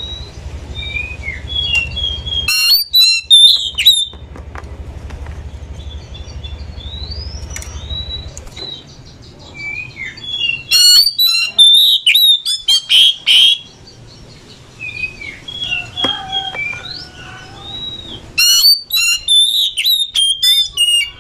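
Oriental magpie-robin singing: varied clear whistled notes, broken three times, about three, eleven and nineteen seconds in, by loud runs of rapid harsh, scratchy notes. A low hum sits under the first eight seconds or so.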